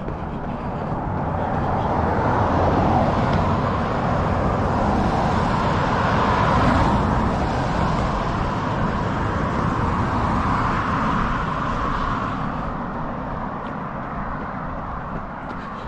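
A road vehicle passing, its tyre and engine noise building over a couple of seconds, staying loud through the middle and fading away near the end.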